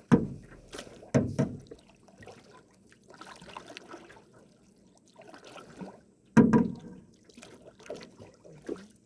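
Canoe paddles dipping and pulling through lake water, with splashing and dripping; the louder strokes come right at the start, about a second in, and around six and a half seconds in.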